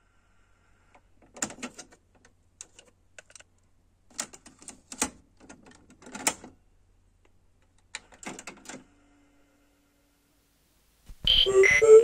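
A cassette being handled and loaded into a Sony TC-WR661 cassette deck: a series of plastic clicks and clatters as the tape goes in and the cassette door is pushed shut, followed by a brief low hum. Near the end, the tape begins playing the song loudly.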